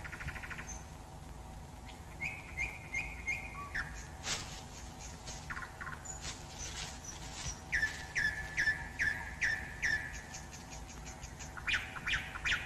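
Forest birds calling in runs of short, repeated chirps, some falling in pitch, with a single sharp click about four seconds in.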